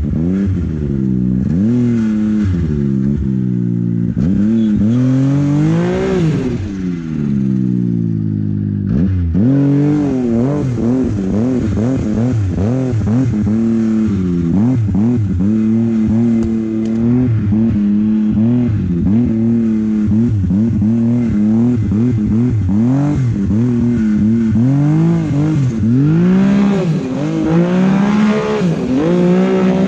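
Arctic Cat mountain snowmobile engine revving up and down without a break as the sled ploughs through deep powder. Near the ninth second the revs drop briefly, then climb again.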